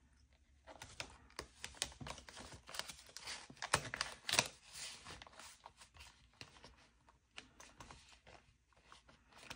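Paper banknotes and cash envelopes being handled: a string of quiet rustles, crinkles and small clicks, with a couple of louder ones about four seconds in.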